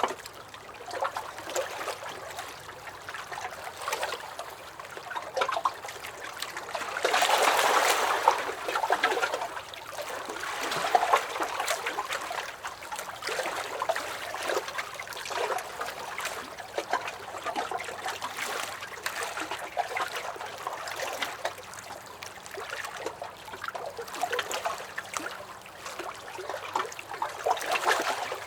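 Small lake waves lapping and splashing against a dock, in uneven surges with little slaps of water; the biggest surge comes about a quarter of the way in.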